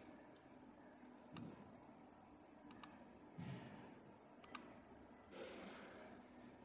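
Faint computer mouse clicks, three or four of them spaced a second or two apart, over quiet room tone, with two short soft hisses in between.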